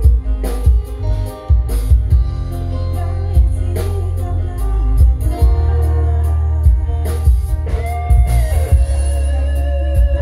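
Live dangdut band music played loud through a stage PA: heavy bass and drum hits under sustained melodic instrument lines.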